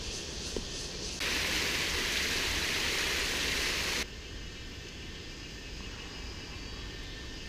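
Water rushing down a stepped concrete drainage channel, a loud steady hiss that starts abruptly about a second in and cuts off about four seconds in. Quieter outdoor background noise lies on either side of it.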